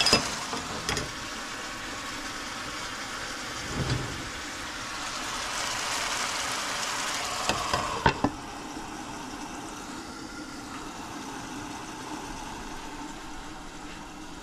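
Chicken adobo in soy sauce boiling and sizzling in a pan. A glass lid clinks onto the pan at the start and again about eight seconds in, after which the sizzle is quieter and muffled under the lid.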